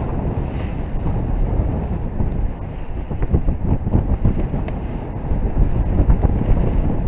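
Wind noise from the airflow of paragliding flight hitting the microphone: a loud, steady low rush with uneven gusty buffeting.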